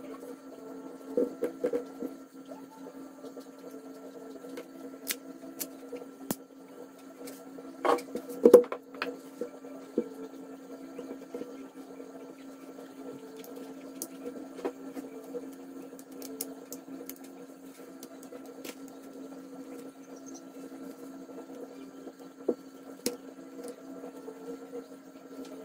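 A steady machine hum, with scattered clicks and knocks from a gloved hand handling a Glock 17 Gen5 pistol and its recoil spring guide rod on a bench mat. The loudest knocks come about eight seconds in.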